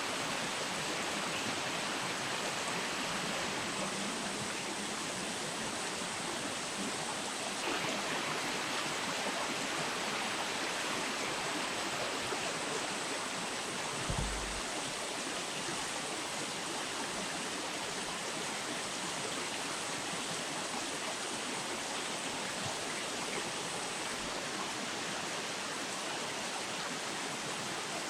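Steady rush of flowing river water, with one brief low thump about halfway through.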